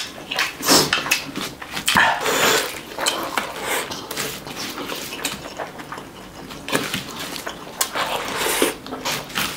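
Close-miked eating sounds: wet chewing and lip smacks, with fingers squishing and gathering curry-soaked rice on a banana leaf.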